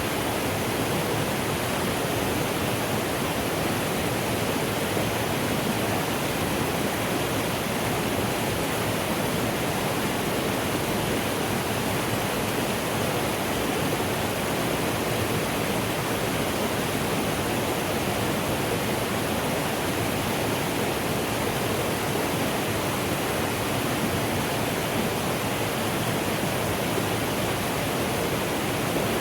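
Mountain stream flowing in a steady, even rush of water, with no breaks or changes.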